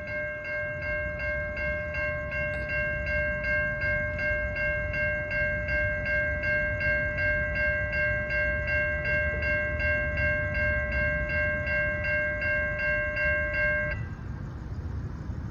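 Electronic railroad grade-crossing warning bell ringing in a fast, even pulse of about three dings a second, over a low rumble. It cuts off suddenly near the end.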